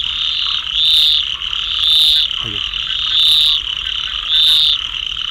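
Frogs calling at night: a short, high-pitched call repeats about once a second over a steady background chorus.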